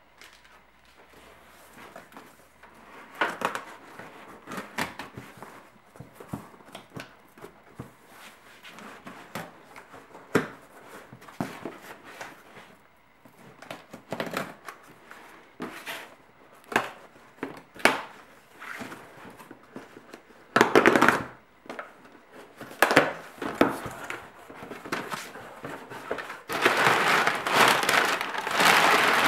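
Hands handling plastic car parts: scattered clicks, taps and knocks, with a denser crinkling rustle near the end.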